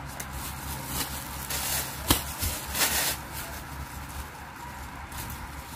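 Clear plastic packaging rustling and crinkling as it is handled, with a sharp click about two seconds in. A low steady hum runs underneath.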